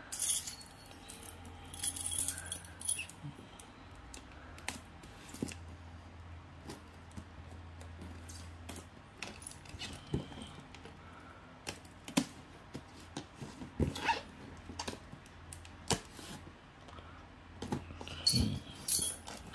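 A cardboard shipping box wrapped in plastic film being handled and opened: scattered crinkles of the film, scrapes and taps on the cardboard, with louder bursts of crackling about a second in, around fourteen seconds and near the end.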